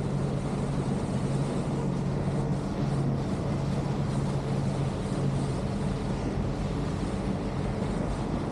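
Vaporetto water bus engine running steadily: a constant low hum under an even rushing noise.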